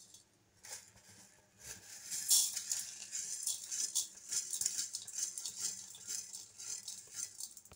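Coriander seeds rattling and skittering on the bare metal of a dry pan as fingers push them around. The seeds are being dry-roasted with no oil. A few separate clicks come first, then from about two seconds in a continuous scratchy rattle.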